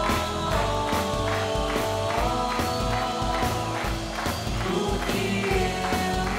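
A girl sings a pop-rock song into a microphone, holding long notes, backed by a live band with guitar and a steady drum beat.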